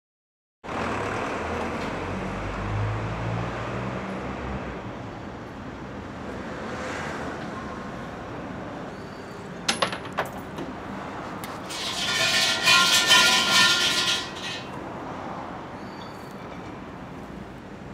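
About ten seconds in, a few sharp metallic clinks like coins dropped into a shrine offering box. Soon after, a shrine bell (suzu) is shaken and jangles for about three seconds, the loudest sound, over steady outdoor background noise with a low rumble early on.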